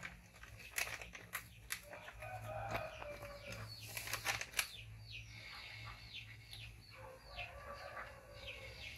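Chickens calling in the background: a clucking call about two seconds in and again near the end, and short, high, falling chirps repeated about twice a second through the second half. A few sharp clicks and taps fall in the first half.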